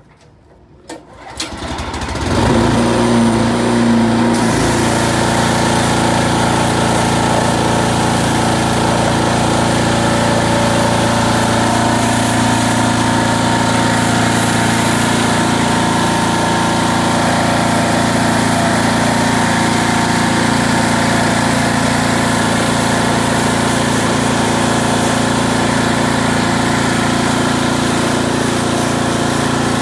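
Pressure washer starting up about two seconds in after a couple of clicks, then running steadily under load with the hiss of its high-pressure spray.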